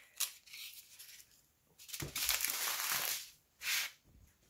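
Crinkling rustle of a diamond-painting canvas and its plastic cover film being shifted and smoothed flat, with a short tap just after the start. The longest rustle comes about two seconds in and lasts about a second, and a shorter one follows near the end.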